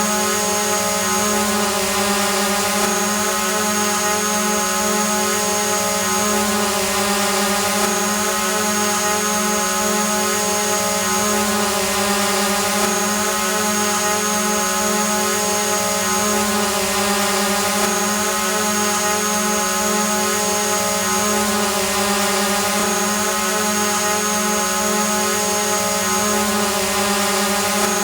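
Drone hovering: the steady hum and whine of its propellers and motors, held at one even pitch.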